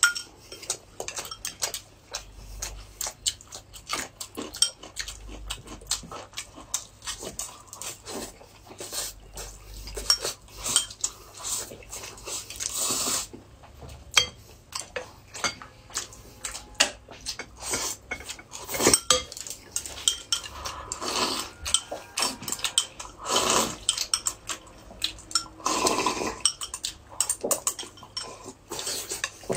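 Close-up eating sounds: chopsticks and spoons clicking against small glass bowls, with loud slurps and chewing every few seconds.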